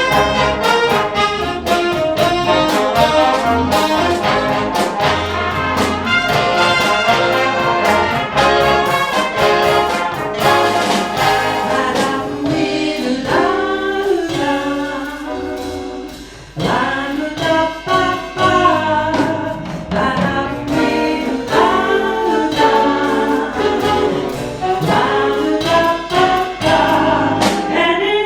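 Live big band playing, with the brass section (trumpets and trombones) prominent over the rhythm section, briefly dropping back about sixteen seconds in.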